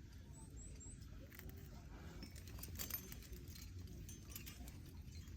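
Climbing gear on a harness rack, carabiners and cams, clinking faintly in scattered light metallic clicks over a low steady rumble of wind.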